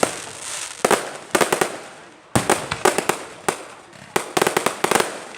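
Firecrackers going off in irregular bursts of sharp bangs, with a quick string of pops about four seconds in.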